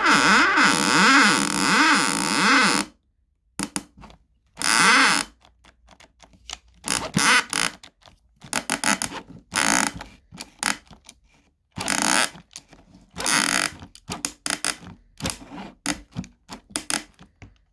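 Kolner KCD 12 cordless drill-driver motor running with a wavering pitch. It cuts off about three seconds in, then runs in many short bursts with silent gaps between them.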